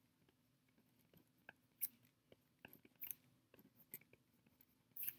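Near silence: room tone with a few faint, scattered short clicks.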